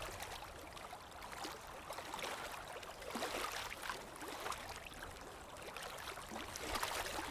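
Shallow river water running over stones, a low trickling and gurgling with small irregular splashes.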